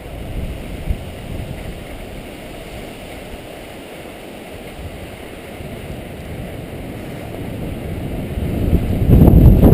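Wind rushing over an action camera's microphone while skiing downhill, mixed with skis sliding over packed snow; the low rumble swells louder near the end.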